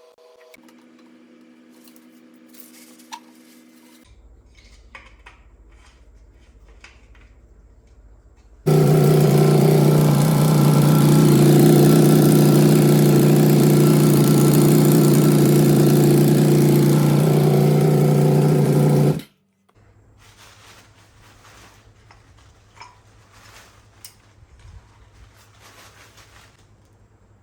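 KTM RC8R's 1190 cc V-twin engine running at a steady speed for about ten seconds, starting and stopping abruptly. Before and after it there are a low hum and faint clicks and knocks of handling.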